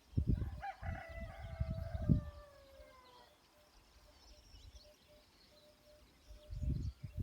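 A rooster crowing once: one long call that slides down in pitch toward its end. Loud low rumbling noises come and go under it and again near the end, with faint high bird chirps between.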